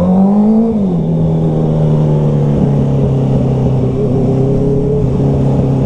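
Motorcycle engine, the rider's own Honda CBR650F inline-four, riding at speed. Its revs rise over the first second, drop back, then hold a steady pitch, with wind rushing underneath.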